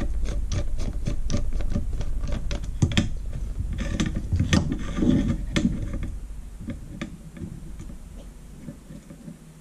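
Small screwdriver backing a Phillips screw out of a handheld radio's circuit board: a fast run of small clicks for about three seconds, then a few scattered taps and knocks as the screw is lifted out, growing quieter near the end.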